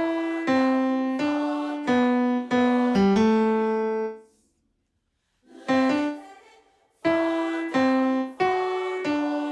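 Piano playing the tenor vocal line note by note as a reference part: single struck notes in a slow melody in the tenor range. There is a short pause of about a second midway.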